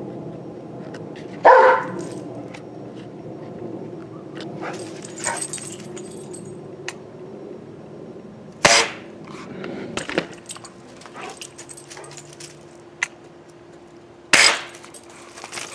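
A dog barking a few times, with several seconds between barks, over a steady low hum.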